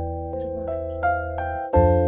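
Background music: a soft piano or electric-piano melody of single notes over a held low chord, with a fresh chord struck near the end.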